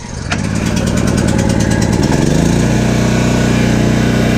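Ford portable generator's engine catching on a recoil pull-start, cold with the choke on. It picks up speed, rising in pitch about two seconds in, then settles into a steady, even run.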